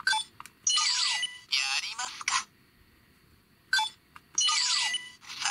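The CSM Den-O Belt's K-Taros toy phone giving a short beep at each key press and playing recorded Imagin character voice lines through its small speaker, twice. The voices sound thin and tinny, with no low end.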